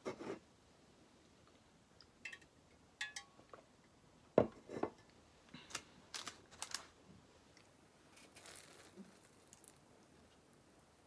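Scattered light tabletop handling sounds: a glass of iced coffee set down on a wooden desk with a sharp knock about four and a half seconds in, and short crackles as a flaky croissant is torn apart.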